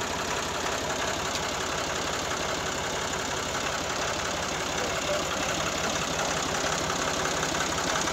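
IMT 540 tractor's three-cylinder diesel engine idling steadily.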